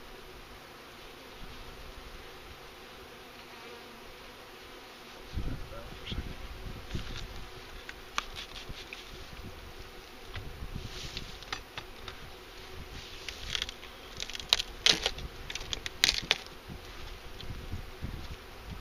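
Package honeybees buzzing as a steady hum around an open hive. From about five seconds in a low rumble joins it, then a run of sharp knocks and clicks of handling, loudest twice near the end.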